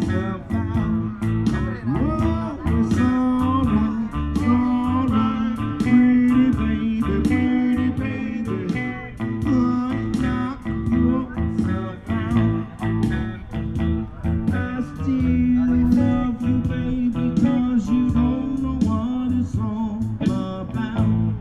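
Blues background music with guitar, its melody in long held notes that bend in pitch.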